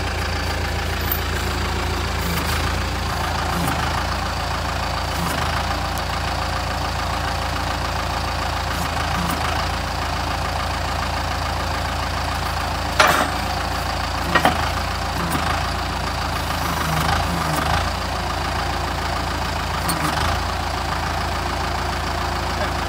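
Kubota compact tractor's diesel engine running steadily at idle, with two sharp knocks about halfway through.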